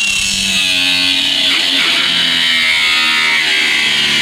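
Grinder with an abrasive disc cutting into a car's sheet-metal quarter panel: a loud, steady high whine that sags slightly as the disc bites, with ringing tones from the panel that shift in pitch.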